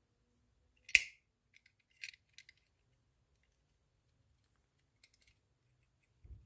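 Small metal reel parts clicking as they are worked loose by hand from a conventional fishing reel's side plate: one sharp click about a second in, then a few lighter clicks and taps around two seconds and again around five seconds, with a soft low thump near the end.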